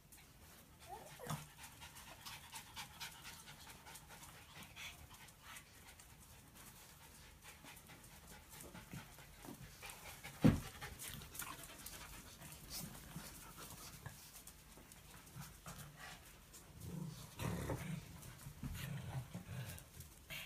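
Small dogs panting and moving about, with scattered light clicks and one sharp knock about halfway through.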